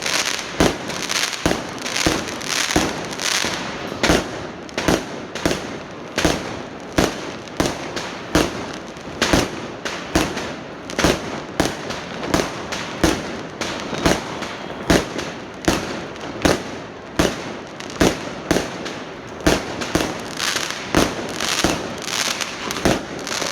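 Fireworks bursting without a break: an irregular string of sharp bangs, about two a second, over a continuous crackle.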